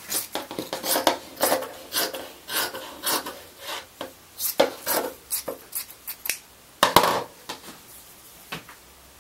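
Scissors snipping through fiberglass cloth in a run of quick cuts, about two to three a second, with the cloth rustling. The cutting stops about six seconds in, followed by a single louder knock.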